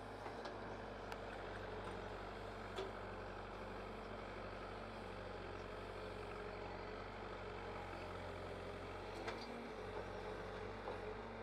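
Backhoe loader's diesel engine running steadily as the machine digs and loads, with a few faint knocks.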